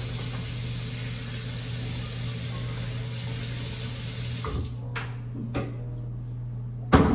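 Kitchen tap water running steadily, shut off about four and a half seconds in, followed by a few light knocks and a louder knock near the end.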